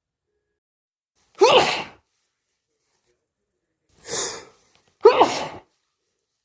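A person sneezing twice, each sneeze loud and sudden with a falling voiced cry. A shorter, breathier burst comes just before the second sneeze.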